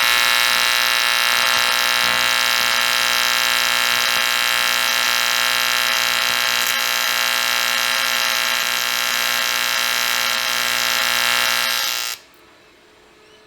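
A loud, steady electronic buzzing tone, like an alarm, that starts abruptly and cuts off suddenly after about twelve seconds.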